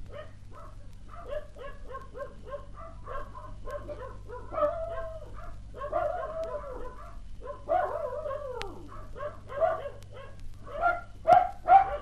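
Animal cries: many short yelps in quick succession, with a few longer calls that rise and fall, growing louder near the end, over a steady low hum.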